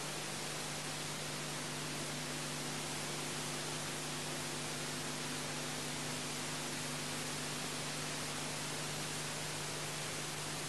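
Steady hiss with a faint low hum: background noise of an old analog film soundtrack, with no music or voice over it.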